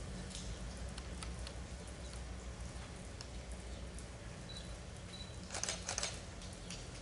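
Quiet ambience under a metal carbarn roof: a low steady hum with scattered light taps of rain on the roof, and two brief louder scuffs near the end.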